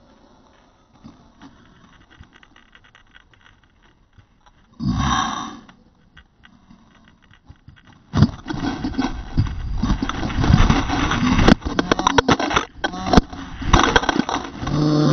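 Light scraping of a hand and gear against rock, with a short loud rush about five seconds in. From about eight seconds in comes loud, continuous crashing and scraping: a climber falling down the rock and tumbling through brush and dry leaves, with many sharp snaps and knocks.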